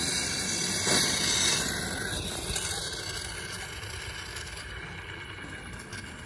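Leftover fuel pressure hissing out of a loosened high-pressure fuel line fitting on a 2.7 EcoBoost's direct-injection fuel pump, into a rag wrapped around the fitting. The hiss fades steadily as the pressure bleeds off, with a light knock about a second in.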